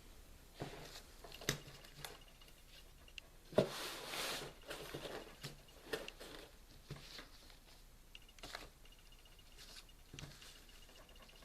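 Faint handling noises in a small room: scattered light clicks and short rustles, with one louder knock and a rustle about three and a half seconds in.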